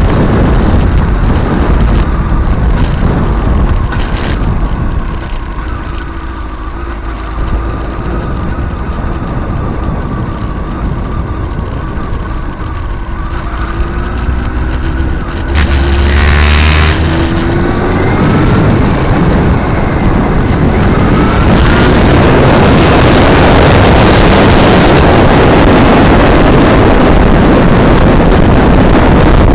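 Honda motorcycle engine running under way with wind rushing over the microphone. It eases off and quietens for several seconds, revs up with a rising pitch about halfway through, then wind noise dominates at speed.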